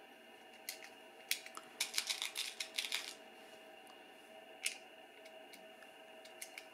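Light clicks and small rattles of lead .22 air-rifle pellets being handled from their tin and pressed into an Air Arms rotary magazine: a quick run of about ten clicks around two seconds in, with single clicks before and after.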